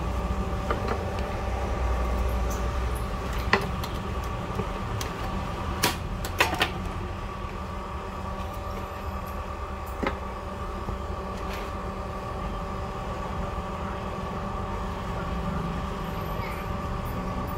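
A steady mechanical hum made of several fixed tones over a low rumble, with a few sharp clicks and taps, most of them a few seconds in.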